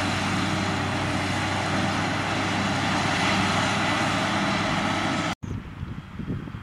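Self-propelled forage harvester running steadily at work in maize, a loud even engine-and-cutterhead drone with a low hum. It cuts off abruptly near the end and gives way to wind buffeting the microphone.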